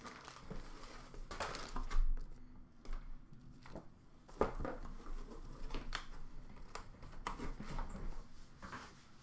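Plastic-bagged merchandise and cardboard boxes being handled: rustling of the plastic sleeve with scattered light knocks and taps of box and lid.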